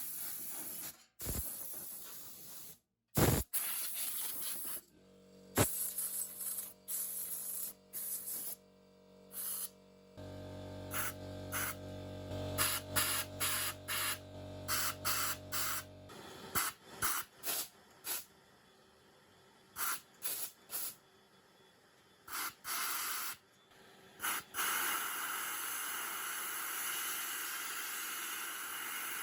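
Compressed air from an air-line blow gun hissing in many short on-off bursts, then one longer blast of several seconds near the end. It is being blown through a gas heater's pilot supply pipe and burner to clear a suspected blockage. A low motor hum runs underneath through the middle.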